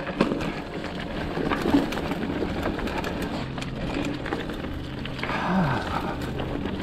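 Mountain bike rolling down a rough dirt trail: tyres crunching over dirt and stones, with the bike rattling and clicking over the bumps. About halfway through, a low steady hum comes in for a couple of seconds and slides down in pitch as it ends.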